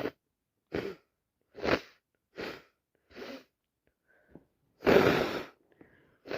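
A person with a head cold taking a run of short, sharp breaths about every 0.8 s, then letting out one loud, wet sneeze about five seconds in.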